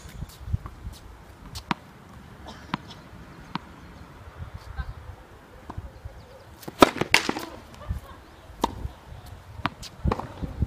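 Tennis balls being struck by rackets and bouncing on a court in a rally: a string of sharp pops at uneven intervals, the loudest a quick cluster about seven seconds in.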